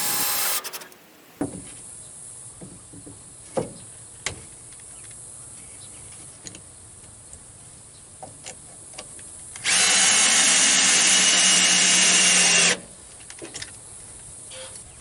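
Power drill running in two bursts: a short one that stops just after the start and a steady one of about three seconds near ten seconds in, with a few light knocks in between.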